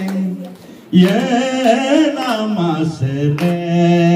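A man singing a gospel hymn solo into a microphone, holding long sustained notes. He breaks off briefly about half a second in and comes back strongly about a second in.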